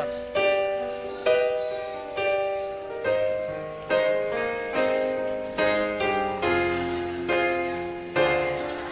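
Slow piano chords, one struck about every second and left to fade, playing the intro of a ballad.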